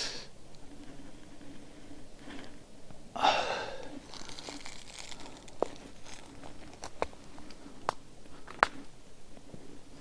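Dry brush and dead branches rustling and crackling as someone pushes through them on foot: a louder burst of rustling about three seconds in, then a scatter of sharp crackles through the second half.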